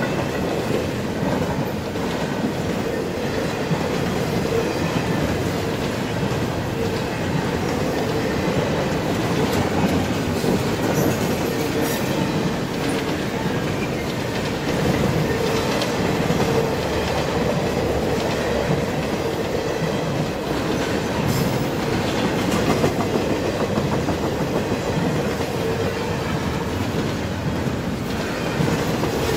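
CSX double-stack intermodal train passing close by: a steady rumble of steel wheels on the rails, with clickety-clack and a few sharp clacks from the wheels.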